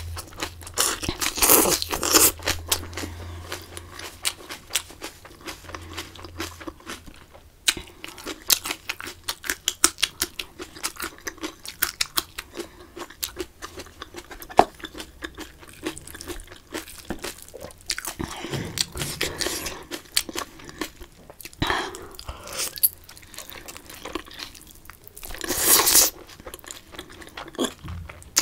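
Close-miked chewing with crisp crunching of a fresh lettuce and vegetable wrap, full of small wet mouth clicks, with louder crunches about a second in and again near the end.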